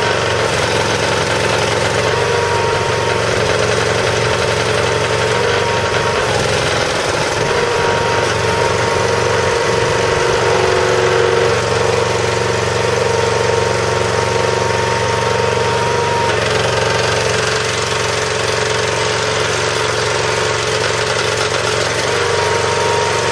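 Single-cylinder 13-horsepower Honda engine running a log splitter's two-stage hydraulic pump, its pitch shifting several times as it labors a little while the hydraulic log lifter and blade lifter move up and down. The load comes from oil being forced through 1/16-inch orifices in the lines, not from any binding.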